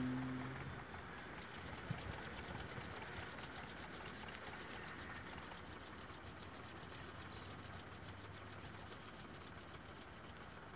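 Palms rubbed briskly together, a fast, even back-and-forth rasp that warms the hands before they are cupped over the eyes. At the very start a low, steady hummed tone fades out.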